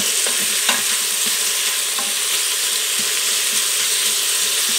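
Chopped bacon and onion sizzling steadily in bacon fat in an Instant Pot's stainless steel inner pot on sauté as the bacon fat renders out, with a wooden spoon stirring through them and clicking faintly against the pot a few times.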